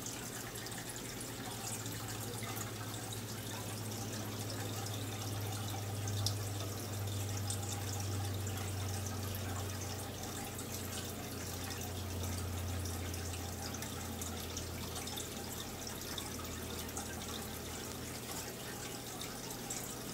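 Aquarium water bubbling and fizzing steadily as a stream of air bubbles rises through the tank, over a low steady hum.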